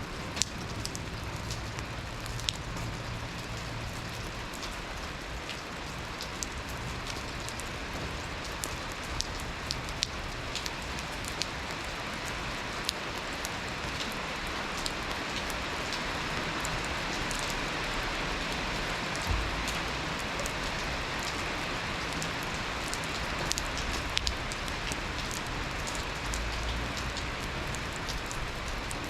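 Steady rain falling, an even hiss with scattered sharper taps of single drops landing close by.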